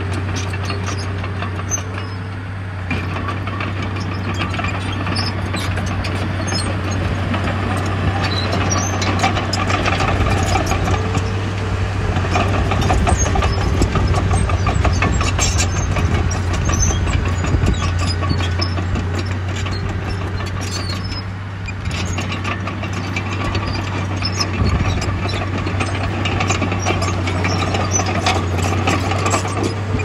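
Heavy diesel earthmoving machinery working: a steady low engine drone with scattered rattles and clinks, swelling a little in the middle and easing off briefly twice.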